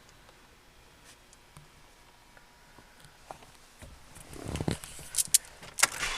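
Faint room tone, then rustling handling noise with a few sharp clicks in the last two seconds.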